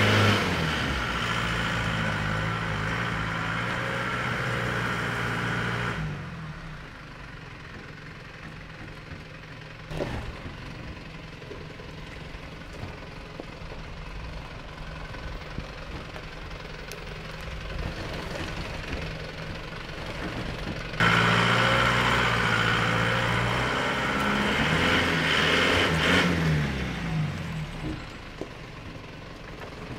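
Holden Rodeo TF ute's engine working under load on a rutted dirt hill climb: revving for the first six seconds or so, dropping to a low, quiet run through the middle with a single knock about ten seconds in, then revving again with rising and falling pitch for about five seconds before easing off.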